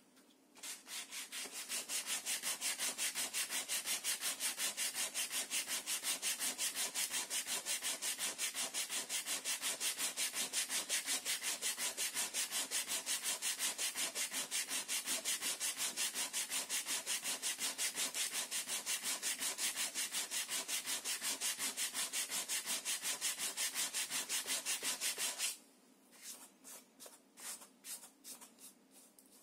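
Hand-sanding the planked wooden hull of a model ship, sandpaper rubbed back and forth in fast, even strokes, roughly four a second. Near the end it drops to a few lighter, spaced strokes.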